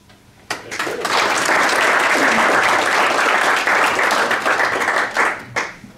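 Audience applauding: the clapping starts about half a second in, swells quickly and dies away shortly before the end.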